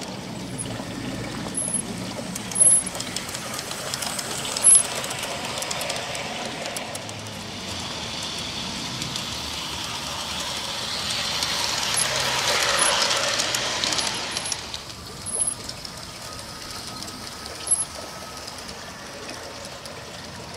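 G-scale model steam locomotive and passenger car running on garden railway track: a steady rattle of small wheels on the rails. It swells as the train passes close by, about twelve to fourteen seconds in, then drops back, with a few sharp clicks along the way.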